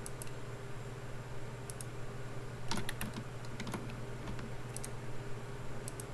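Scattered sharp clicks of a computer mouse and keyboard as mesh edges are selected one by one, with a quicker run of clicks about three seconds in. A steady low hum lies underneath.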